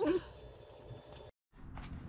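A felt-tip marker squeaks briefly, with a wavering pitch, as it draws tally marks on a galvanized steel spring bracket. Faint room tone follows, broken by a moment of dead silence.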